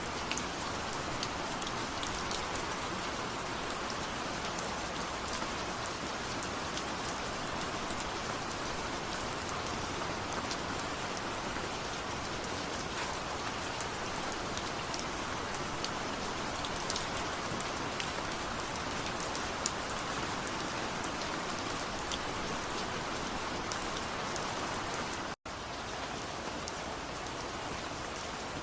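Steady rain falling, an even hiss with scattered sharp drop ticks. The sound cuts out completely for an instant about 25 seconds in.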